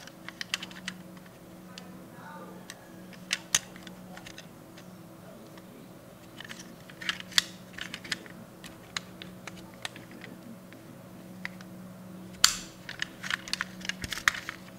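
Small sharp clicks and taps from a die-cast toy pickup truck being handled: its doors clicking open and shut and fingers knocking against the body, in scattered clusters with the busiest, loudest run about twelve seconds in. A faint steady hum runs underneath.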